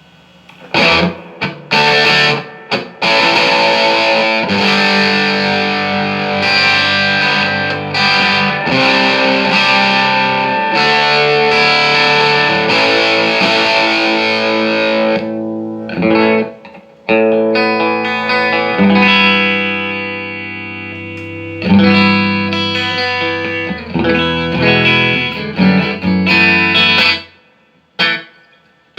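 Electric guitar played with distortion through a Marshall JCM2000 DSL201 amplifier. There are a few short chord stabs, then long held chords with brief breaks, and one chord is left to ring out about two-thirds of the way through. The amp is being sound-tested after a repair.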